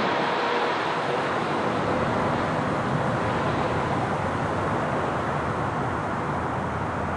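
Boeing 777 jet engines heard from behind as the airliner flies away on approach with its gear down: a steady rush of jet noise that slowly fades, the higher hiss thinning out first.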